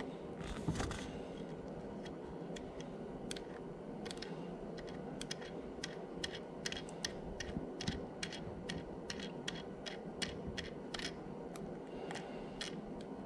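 A metal pick tool clicking and ticking against a switch button's rubber ring and nut set in a plastic fairing panel. The small sharp clicks come irregularly, a few at first and then about two or three a second through the middle.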